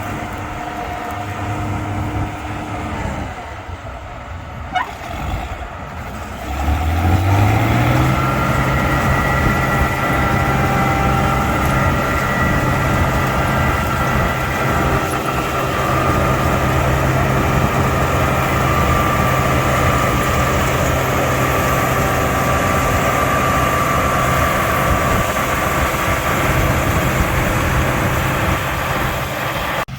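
A vehicle engine running low, then about seven seconds in it revs up and holds a steady, higher speed, with one sharp click shortly before the rev.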